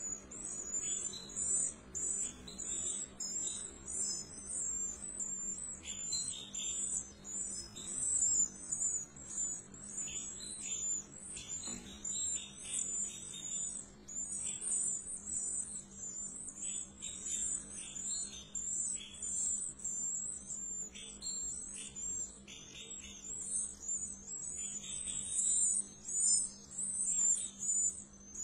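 European goldfinch nestlings begging for food as the female feeds them: a rapid, unbroken high-pitched chirping, with bursts of lower chirps that come and go.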